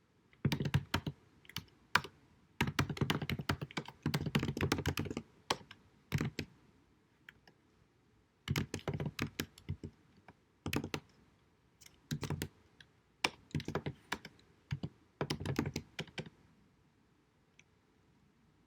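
Typing on a computer keyboard in quick bursts of keystrokes broken by short pauses, with the typing stopping about three seconds before the end. It is recorded with deliberately low-quality sound.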